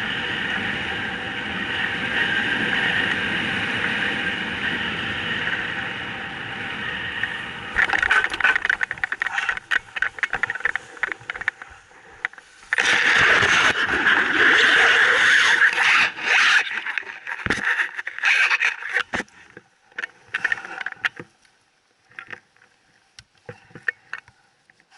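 A small engine running steadily for about eight seconds. Then choppy scraping and crackling bursts, loudest a few seconds later, thinning to scattered clicks near the end.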